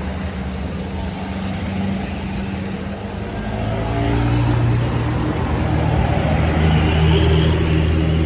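A bus's diesel engine pulling uphill. Its note is steady at first, then climbs in pitch and gets louder from about halfway through as the bus comes closer.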